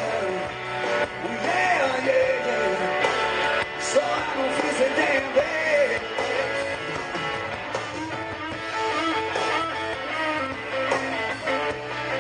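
Live blues-rock trio playing an instrumental break: an electric lead guitar takes the melody with notes that bend up and down, over bass guitar and drums.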